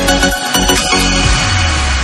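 Electronic dance music with deep kick-drum hits and a heavy held bass note in the second half.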